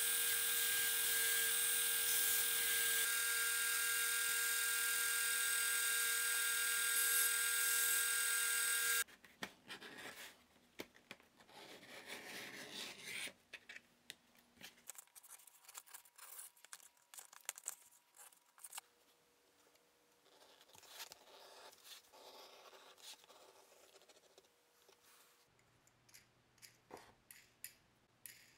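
A belt grinder runs steadily, sanding the edge of a thick leather sheath, and cuts off suddenly about nine seconds in. Faint, scattered scraping and clicks of hand leather tools working the leather follow.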